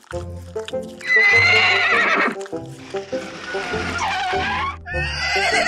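Background music with a steady bass line, and three high, wavering whinny-like animal calls over it, each lasting about a second and a half.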